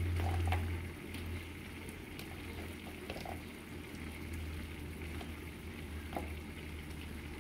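A pan of red chile stew simmering with a low bubbling, over a steady low hum. There are a few soft plops as cubes of potato are dropped into the sauce.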